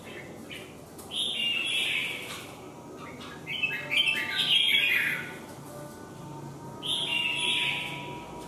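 Caged red-whiskered bulbuls calling in three bursts of scratchy, chattering song: about a second in, around four seconds in, and near seven seconds.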